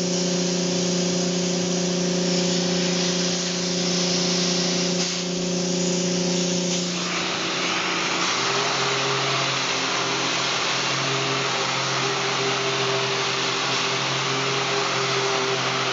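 Pneumatic random orbital sander with vacuum dust extraction sanding a solid surface countertop: a steady whirring hiss. About seven seconds in, the hum changes pitch and the hiss grows denser and louder as the pad works across the top.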